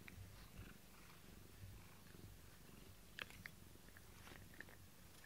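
Domestic cat purring faintly and steadily while being brushed with a grooming brush, with a few soft crackles from the brush through its fur about three seconds in.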